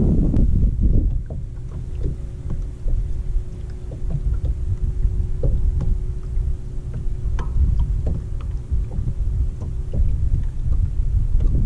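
Wind buffeting the microphone over small waves lapping and slapping against the hull of a bass boat, with scattered light ticks and splashes. A faint steady hum sets in about a second in.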